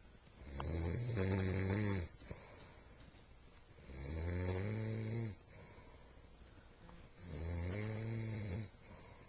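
A sleeping man snoring: three long, droning snores about a second and a half each, coming about every three and a half seconds, with quiet breathing between.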